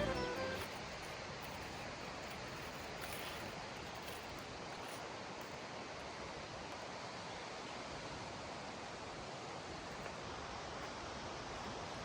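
Steady outdoor ambience: an even rushing hiss with no distinct events. Music fades out at the very start.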